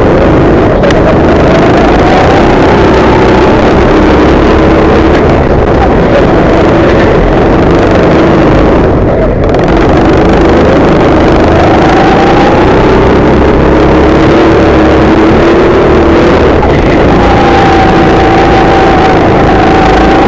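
Go-kart engine running hard close by, its pitch rising and falling over and over, with a brief dip about nine seconds in.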